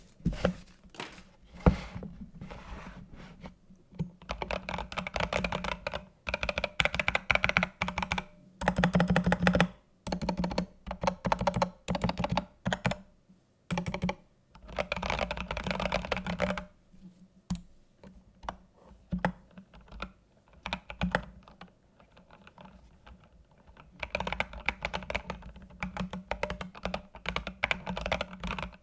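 Mechanical keyboard with Gazzew Boba U4T tactile switches being typed on: fast runs of keystrokes in bursts of a few seconds, broken by short pauses.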